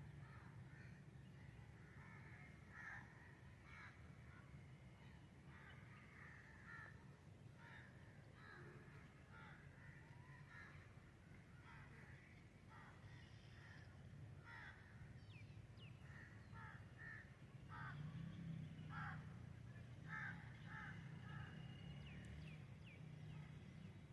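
Faint birdsong of many short, repeated calls, with a few thin high chirps, over a steady low rumble.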